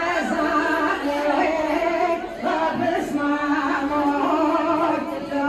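Women singing a Kurdish folk song (kılam) for halay dancing, in long held phrases with short breaks between them.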